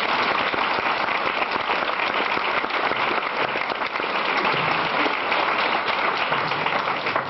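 Audience applauding, a dense steady clatter of many hands clapping that stops abruptly at the end.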